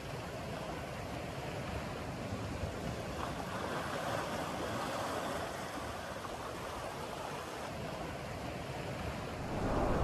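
Surf on a sandy beach: a steady wash of small waves breaking and running up the sand.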